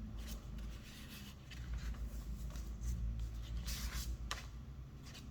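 Paper pages of a handmade journal being turned and handled, rustling in several short bursts, the loudest a little under four seconds in, over a low steady rumble.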